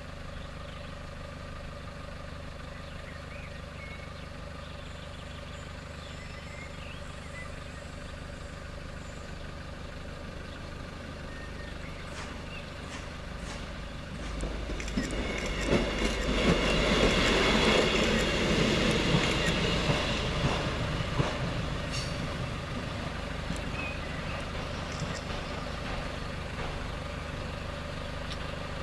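Level crossing's electronic warning bell ringing steadily, with a train passing over the crossing: about fourteen seconds in, a loud rail rumble with clicks of wheels over the rails swells, peaks, and then fades away.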